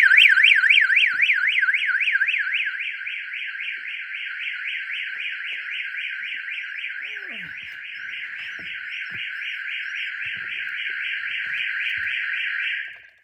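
Car alarm siren on a Kia Sportage, a loud tone warbling rapidly up and down over and over, cutting off suddenly near the end.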